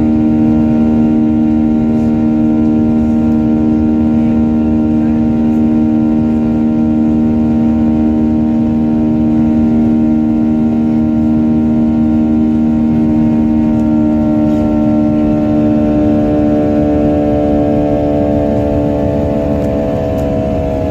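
Aircraft engines running loud and steady, a hum of several held tones over a low rumble. Over the last several seconds the higher tones creep up in pitch as the engines speed up, as at the start of a takeoff.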